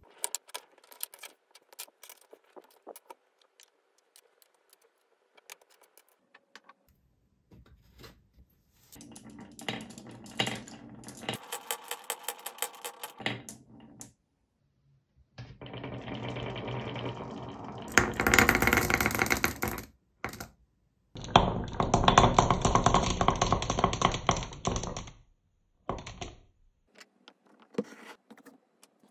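Handling a wooden nesting doll, with scattered sharp wooden clicks as it is opened and set down, and three runs of many small marbles rolling and rattling down a grooved wooden Haba slope, each a few seconds long, the last two the loudest.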